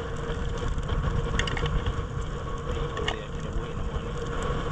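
Dry palm fronds crackling and snapping as they burn under a cooking pot, with a few sharp clicks including the clink of the metal lid going on, over a steady low rumble and a faint hum.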